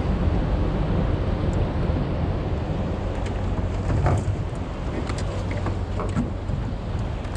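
Small fishing boat's engine running steadily with a low hum, under a constant wash of wind and water noise.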